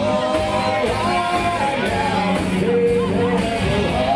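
Rock band playing live, with a singer holding long sung notes over the band.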